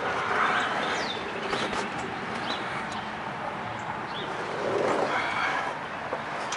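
Outdoor background of birds chirping, with two longer animal calls, one near the start and one about five seconds in.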